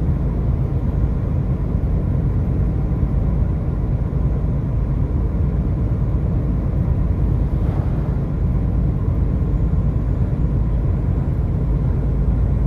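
Steady low rumble of a car travelling at highway speed: tyre and engine noise.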